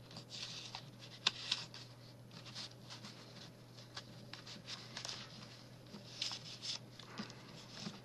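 Paper and card rustling, with soft scrapes and light taps, as a stack of cards is worked into a paper envelope pocket.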